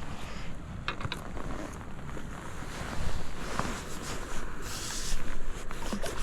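Wind rumbling on the microphone, with a few sharp clicks and short hissing bursts while a hooked bream is played in on rod and reel.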